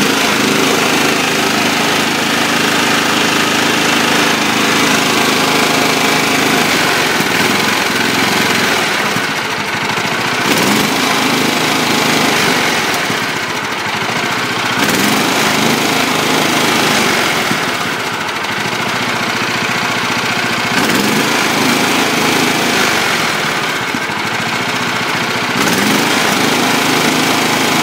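Riding lawn mower's small engine, running on propane, revved up and dropped back several times as the throttle lever is moved. Its pitch rises briefly with each opening of the throttle and settles back toward a steady run in between, showing good throttle response on the propane conversion.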